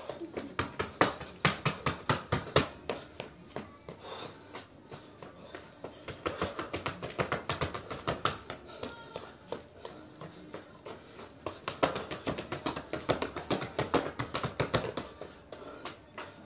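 Quick, irregular taps and scuffs of sneakers on a concrete floor from dance footwork, coming in dense clusters of several a second. A steady high chirring of crickets or other insects runs underneath.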